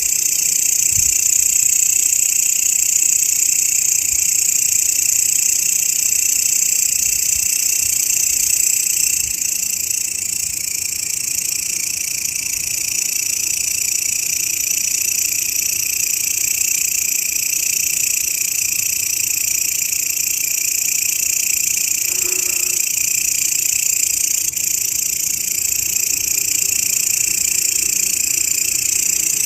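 Grasshoppers (belalang) singing in a continuous, unbroken high-pitched shrill that holds steady throughout.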